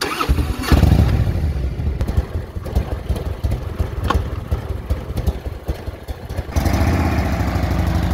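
A V-twin touring motorcycle engine running, revved about a second in, then settling back with a click about four seconds in, and growing louder again near the end as the bike pulls away.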